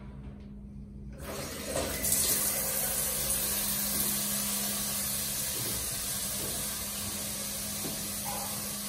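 Overhead shower turned on about a second in, water pouring and splashing steadily in a tiled shower stall.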